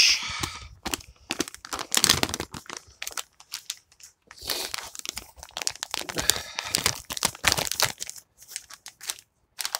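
Plastic packaging of an MRE flameless ration heater being handled and opened, in irregular crinkly bursts.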